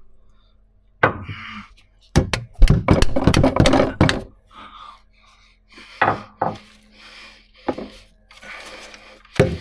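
Hammer strikes on a rusted, seized U-joint to knock it free: a quick cluster of knocks about two to four seconds in, then single knocks spaced a second or so apart.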